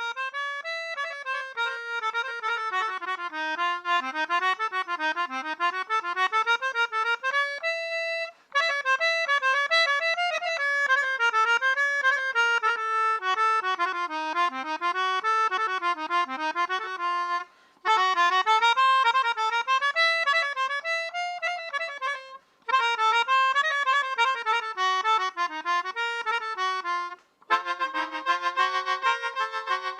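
Instrumental music on a free-reed instrument, a winding melody that breaks off briefly four times, ending on steadier held chords.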